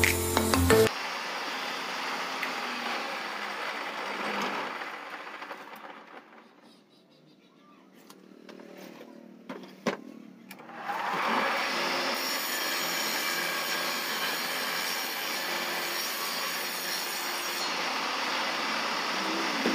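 Table saw motor running, winding down to near silence about five seconds in, a few sharp clicks, then spinning back up with a rising whine near the middle and running steadily again.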